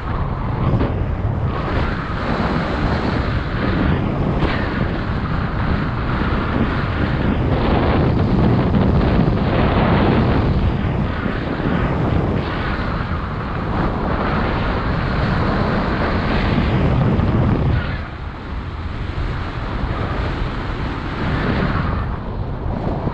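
Wind rushing over the microphone of a paraglider pilot's camera in flight: a loud, steady buffeting that swells and eases, dropping back briefly about eighteen seconds in.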